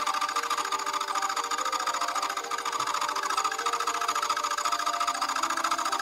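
Vertical milling machine cutting a metal tube into a U-profile, the cutter chattering in a rapid, steady rattle.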